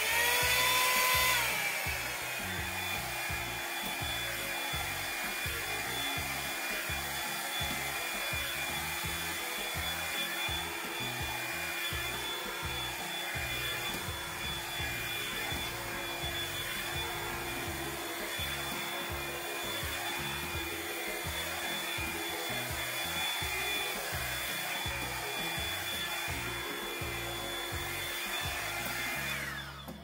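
Revlon One-Step hair dryer brush running with a steady motor whine and rush of air. It is louder and slightly higher for the first second or two, then settles lower as the brush goes into the hair. A rise and fall comes about every second and a half as it is pulled through the hair, and it switches off near the end.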